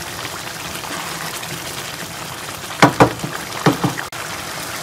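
Pulao rice bubbling at a boil in a wok of chicken stock as the water cooks down. Four sharp knocks, in two pairs about three and four seconds in, stand out over the bubbling.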